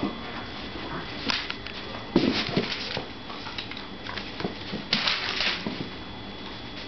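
A Brittany puppy playing with a chew stick, giving a few short puppy barks, loudest a little over two seconds in.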